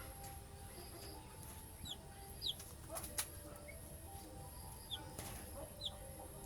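A bird chirping: four short, high, falling chirps, with two sharp clicks between them near the middle.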